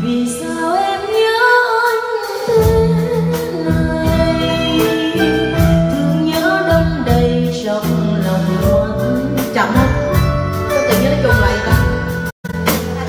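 A woman singing through a microphone and PA with a live band accompanying. The sound cuts out for an instant near the end.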